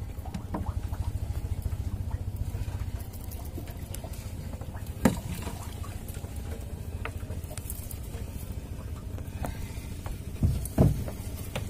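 Fishing boat's engine running steadily, a low rapid chugging. A few sharp knocks break in, one about five seconds in and two close together near the end.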